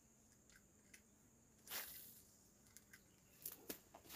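Faint handling noises of an angler working a spinning rod and reel: one short swishing rustle about two seconds in and a few light clicks near the end, over a faint steady high hum.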